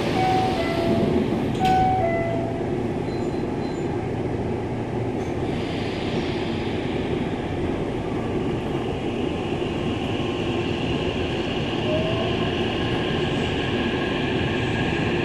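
Hankyu 9000 series train's door chime, a two-note falling chime sounding twice, with a thump about a second and a half in. Then the train pulls away, its running noise building and its VVVF inverter motors whining, with short rising glides in pitch.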